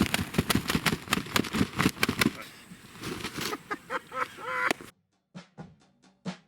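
Dense crackling and rustling for about two seconds, then quieter scattered rustles with a brief vocal sound. About five seconds in, the sound cuts to a drum beat of evenly spaced hits.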